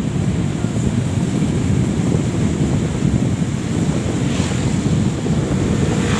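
Steady low rumble of wind buffeting the microphone, mixed with the running and road noise of a moving vehicle. Oncoming vehicles pass about four seconds in and again near the end.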